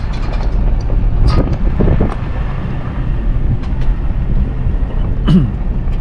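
Car driving slowly on a rough dirt track, with a steady low rumble of engine and tyres and wind buffeting the microphone at the open window.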